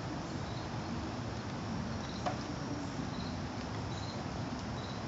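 Steady outdoor background hiss with faint, short high-pitched chirps every second or so, and a single click a little after two seconds in.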